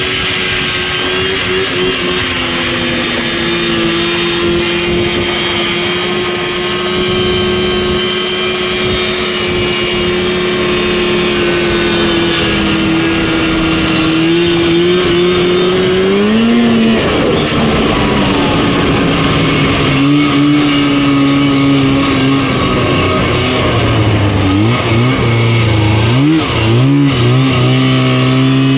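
Rotax 503 two-stroke twin engine of a Lynx snowmobile running at steady high revs for about half the time, then briefly rising in pitch and dropping back. Near the end the revs dip and rise several times in quick succession as the throttle is worked.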